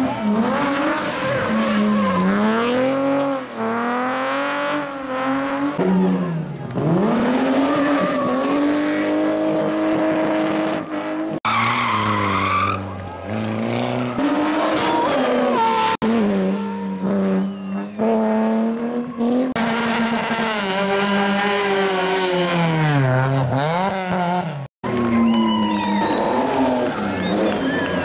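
Rally car engines revving hard, then easing off and revving again as the cars slide through a tight turn, with tyre squeal. Several cars are heard in turn, among them a BMW E30 3 Series and a Renault Clio, with abrupt changes between runs.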